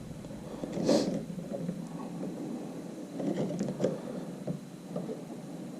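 Handling noises of hands working on the kayak: scattered light knocks and clicks over a low rustle, the sharpest knock about a second in.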